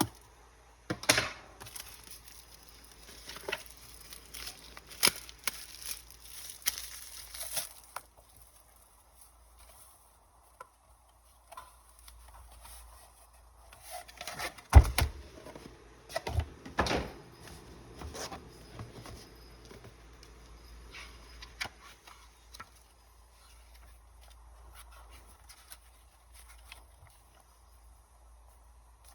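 Cardboard and plastic packaging of a trading-card Elite Trainer Box being handled and opened. There is rustling with scattered clicks and taps in the first eight seconds, a sharp knock about halfway through, then quieter handling.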